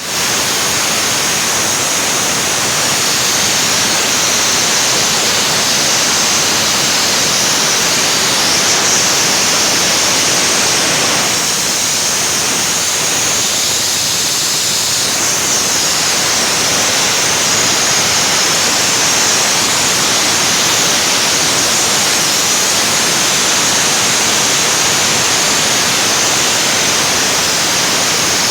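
PKSD-5.25 compressor, freshly overhauled, running steadily as a loud, even rushing noise with a strong high hiss.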